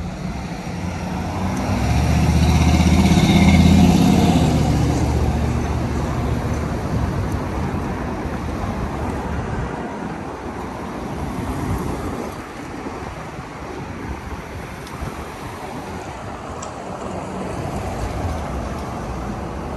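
City street traffic: a heavy vehicle's engine swells up loud as it passes close by, loudest about three and a half seconds in, then fades into steady traffic noise.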